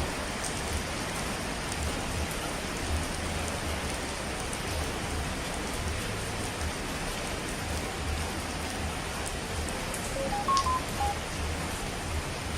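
Steady rain falling, an even hiss of drops. About ten seconds in, a quick run of four or five short beeps at different pitches sounds over it.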